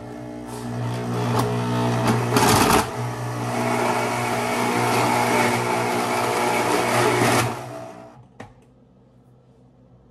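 Electric blender motor running on ice and milk, a steady loud hum that swells briefly about two and a half seconds in, then shuts off about seven and a half seconds in. It is so loud.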